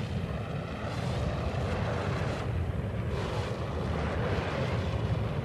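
A deep, steady rumble with a rushing, wind-like noise over it, starting abruptly and swelling a little now and then.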